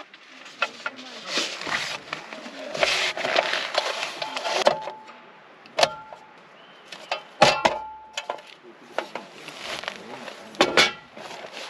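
Irregular rustling and scraping, with a few sharp metallic clinks that ring briefly about six and seven and a half seconds in.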